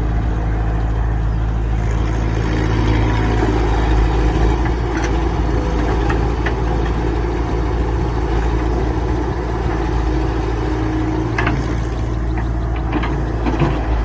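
Excavator engine running steadily under work, with a few short knocks or clanks scattered through.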